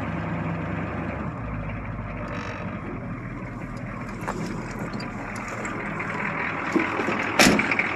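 1982 Chevy Blazer's 6.2 Detroit diesel V8 idling steadily while it warms up after a cold start. One sharp knock about seven and a half seconds in.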